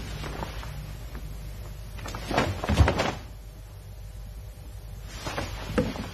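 Karate movements in a cotton gi: the fabric swishes and snaps with each step and punch, and bare feet thud on the mat. The loudest burst comes about halfway through, with a heavy low thud, and a smaller one near the end. A steady low hum runs underneath.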